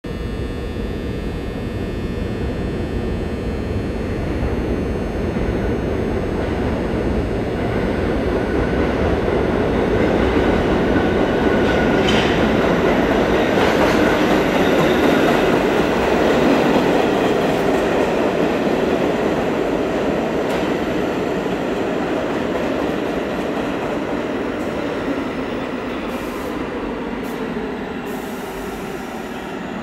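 R46 subway train arriving along the track, a continuous rumble that grows louder to a peak about halfway through, then eases a little as the cars run past. A thin high whine glides through the rumble as the train approaches.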